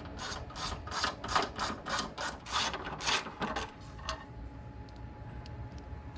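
Hand socket ratchet clicking as a bolt is turned out of the engine's intake. There is a quick run of about four or five clicks a second, stopping a little under four seconds in.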